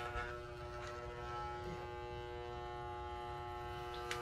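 Corded electric hair clippers running with a steady buzz while cutting a child's hair short.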